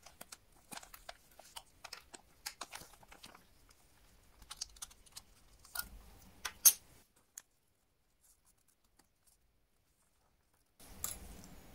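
Clear plastic bag crinkling and crackling as a pocket-watch-style trench watch is handled inside it, with a run of small sharp clicks, the loudest about two-thirds of the way in. The sound then stops for about four seconds, and a faint click comes near the end.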